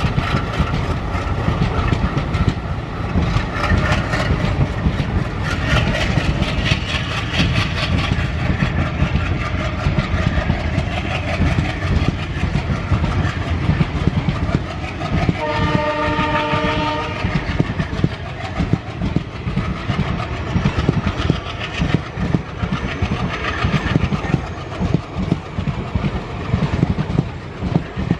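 Passenger coaches of a WDM-3A diesel-hauled train rolling past close by, wheels clattering rhythmically over the rail joints. A little past halfway, the locomotive's horn sounds once for about a second and a half.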